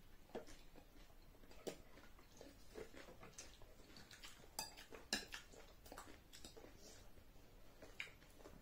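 Faint, scattered clicks and scrapes of plastic spoons and a fork against bowls and a plate while eating.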